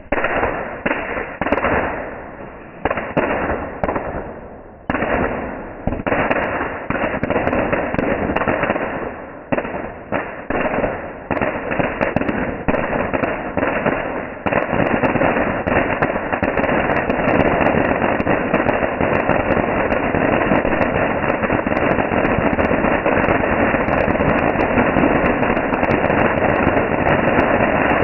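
Ground fountain firework spraying sparks: for the first half it goes in a dozen or so sudden spurts that each fade away, then from about halfway it sprays steadily with a continuous rushing hiss dotted with fine crackles.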